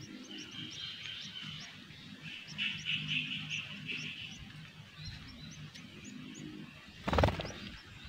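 Small songbirds chirping: a steady run of short, high, upward-flicking chirps a few times a second, with a harsher buzzy chatter from about two and a half to four seconds in. A brief loud rasping noise cuts in about seven seconds in.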